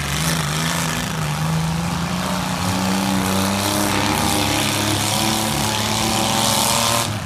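Compact demolition-derby car engine running hard, its note climbing slowly in pitch under a loud rushing noise. The sound cuts off suddenly near the end.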